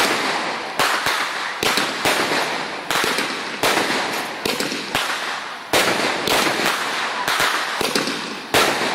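Fireworks going off in quick succession: a run of sharp bangs about one a second, each trailing off into crackle before the next.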